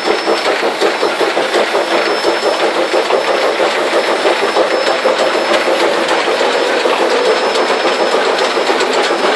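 Cab of NZR Ab-class steam locomotive No. 699 under way: the steady, loud running noise of the engine with a dense, rapid rattle and clatter of the rough-riding cab and its fittings.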